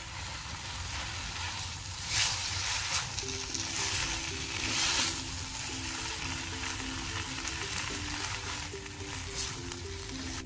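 Mashed boiled potatoes being stirred and broken up with a silicone spatula in a hot, oiled non-stick kadai with fried spices: a steady sizzle with scraping, swelling louder twice as the spatula works the mixture. Quiet background music comes in about three seconds in.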